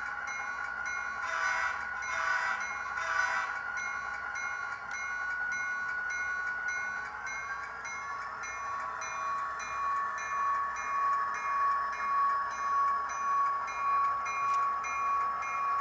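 HO-scale SD40-2 diesel locomotive's DCC sound decoder playing through the model's small speaker: the diesel engine sound runs steadily while the bell rings at an even pace. Three short horn blasts come about two seconds in, and the engine's pitch steps up a little around seven seconds in.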